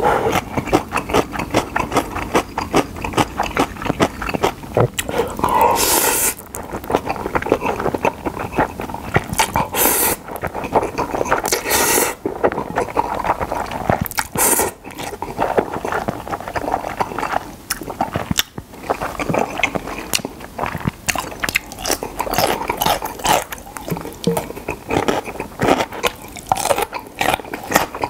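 Close-miked eating of Chapagetti black-bean instant noodles: wet, sticky chewing and lip smacks, with loud slurps of noodles about six, ten and twelve seconds in.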